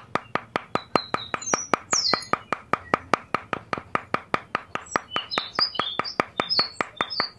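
Rapid, even ticking, about six clicks a second, with small birds chirping over it, the chirps growing more frequent in the second half.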